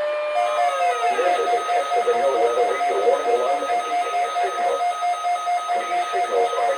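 Weather alert radios sounding their alarm for a NOAA Weather Radio test: a rapid, steady beeping at two pitches, over the jumbled audio of the broadcast. A steady tone sounding as it starts bends down and stops within the first second.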